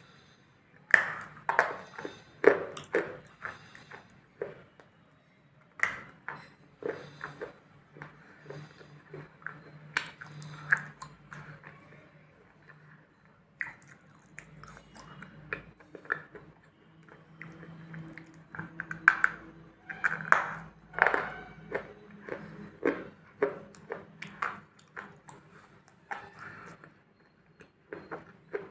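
Close-up crunching and chewing of a hard, thick black substance taken from a spoon: irregular sharp crunches, several in quick runs, with a quieter stretch a little before halfway. It is so hard and thick that it breaks in small crunches rather than proper bites.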